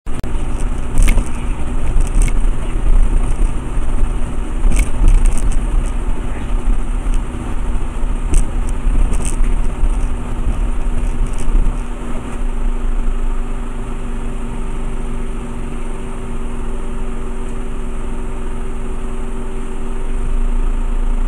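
Road vehicle driving, heard from its dashcam: a steady engine hum and low road rumble. Sharp rattles and knocks come often over roughly the first twelve seconds, then the noise settles to a steadier, slightly quieter drone.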